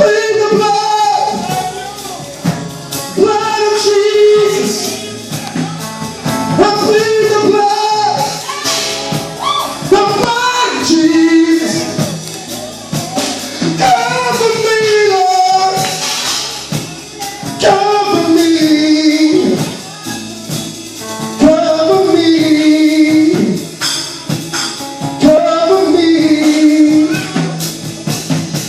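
Live gospel praise music: singers with band accompaniment and a tambourine keeping the beat.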